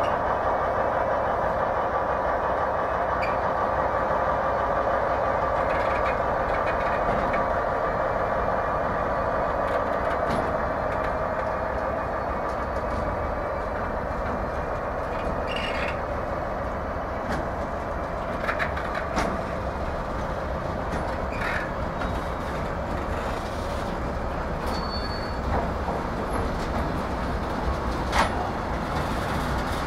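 Container freight train wagons rolling past at speed: a steady rumble of steel wheels on the rails. A few sharp clicks and knocks come through in the second half.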